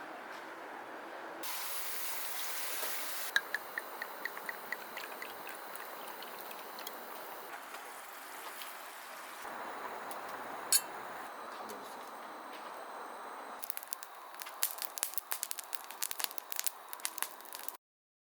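A string of short outdoor camping sound clips cut together: a steady hiss, then a run of about a dozen evenly spaced clicks, then dense sharp crackling near the end.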